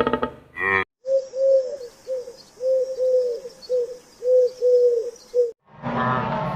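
A dove cooing: a run of about ten short, soft hooting notes, each bending up and back down in pitch. The coos start about a second in, just after another animal's call cuts off, and a different sound takes over near the end.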